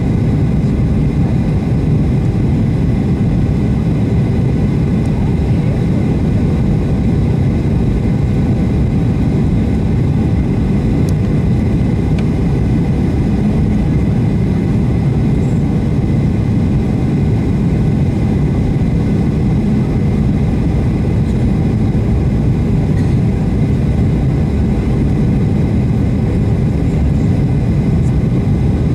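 Cabin noise of a Boeing 737-800 in flight: a steady, loud low rumble of its CFM56-7B engines and airflow, heard from inside the cabin, with no change in level.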